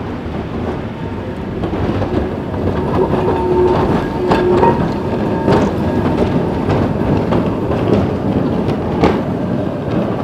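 Historic Ringhoffer two-axle tram with its trailer car passing close on street track, wheels clattering over the rails with several sharp clicks from the rail joints. Near the middle a brief steady whine rises above the rumble.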